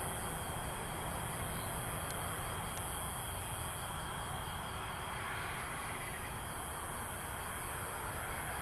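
Steady background noise with no distinct event: a low rumble under a constant high hiss.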